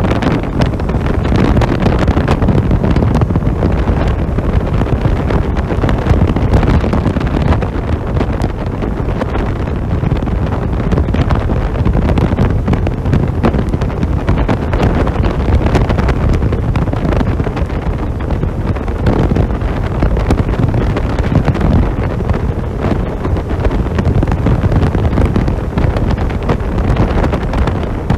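Heavy wind buffeting on the microphone over the Kymco Downtown 350i scooter's single-cylinder engine held at full throttle, accelerating hard towards its top speed.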